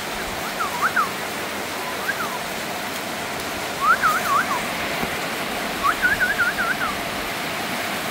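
Heavy rain falling steadily. Four short runs of quick, high chirps sound over it.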